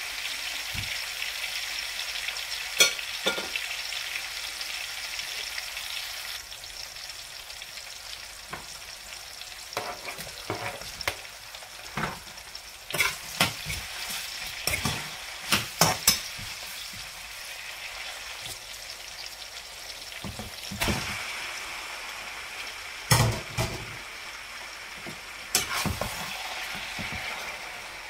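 Chopped onion, garlic and chillies sizzling in hot oil in a non-stick frying pan, stirred with a metal spoon that knocks and scrapes against the pan every few seconds. The sizzle quietens about six seconds in and grows louder again after about twenty seconds.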